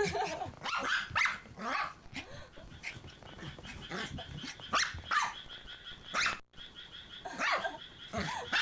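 Toy poodle barking repeatedly, short barks with irregular gaps between them.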